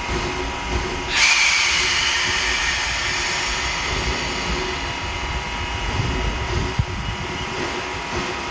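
Steam locomotive No. 28 letting off steam: a loud hiss starts suddenly about a second in and slowly dies away, over a low rumble.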